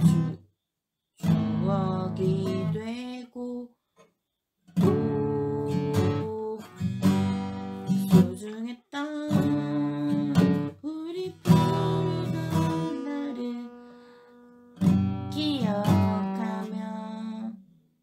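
Steel-string acoustic guitar strummed slowly through a simple chord progression by a beginner, in several phrases of a few seconds each with abrupt short silences between them.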